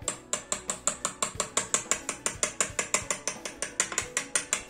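Metal utensil beating an egg and ground cinnamon mixture in a small glass bowl. It makes fast, even clinks against the glass, about seven a second.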